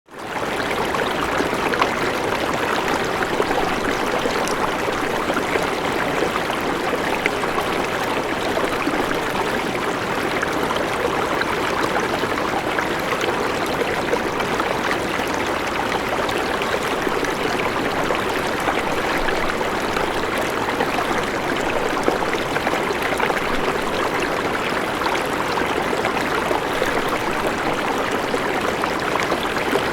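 River water flowing steadily, a continuous rushing and burbling that fades in at the very start.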